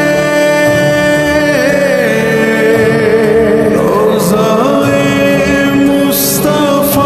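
A voice singing an Urdu naat in long, held notes that glide and waver between pitches.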